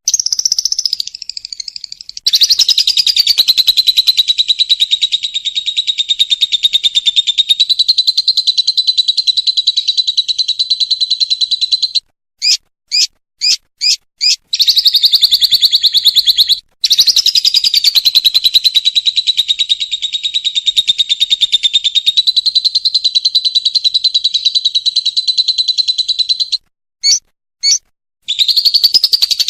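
A lovebird's ngekek song: long, unbroken, fast chattering trills, the longest running nearly ten seconds. They are broken twice by a short run of separate chirps, five in a row about halfway through and two more near the end.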